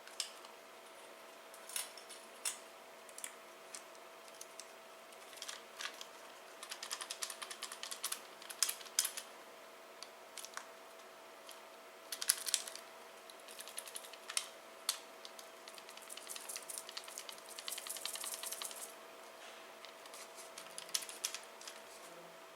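Irregular light clicks and short rattling runs of small hard parts being handled, over a faint steady hum.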